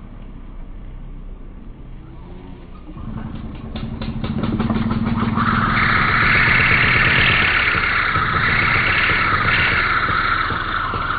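String trimmer starting up about three seconds in and speeding up to a steady high whine, its spinning line whirring close over the grass.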